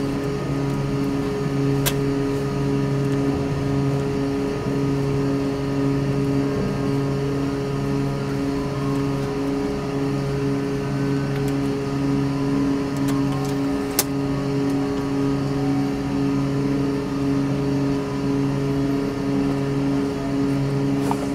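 Steady low drone of a car ferry's engines under way, a hum of several held tones over a rush of noise. Two sharp clicks cut through it, one about two seconds in and one past the middle.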